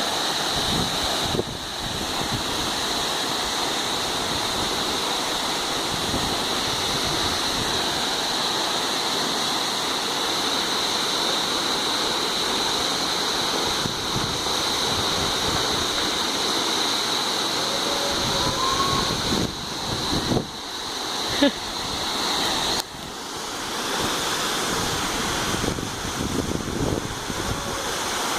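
Waterfall rushing steadily: a dense, unbroken noise of falling water.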